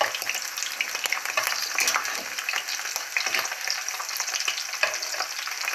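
Slices of lamb liver frying in hot oil in a cast-iron skillet: a steady, dense sizzle and crackle of spattering fat. A metal spatula moves the pieces near the start.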